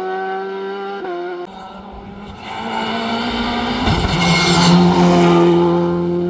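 Race car engine running hard at high revs, with a break in the sound about a second and a half in, then climbing again. A burst of tyre noise comes about four seconds in.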